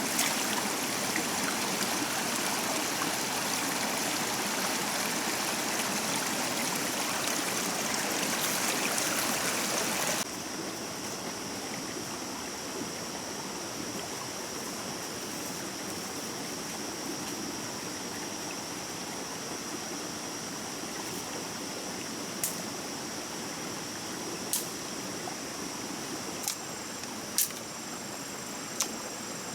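Stream water flowing steadily, with an abrupt drop to a quieter rush about a third of the way through. Several sharp clicks sound over the water in the last few seconds.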